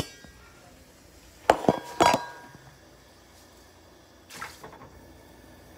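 A sharp knock at the start, then three metal clanks about 1.5 to 2 seconds in with a short ring, from a saucepan knocking on an electric coil stove. Near the end a softer splash as a block of dry instant ramen noodles drops into the pot of hot water.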